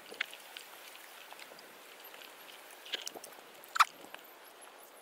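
A hiker's footsteps climbing a mountain trail: scattered scuffs and crunches underfoot, with one sharp, louder crunch a little under four seconds in.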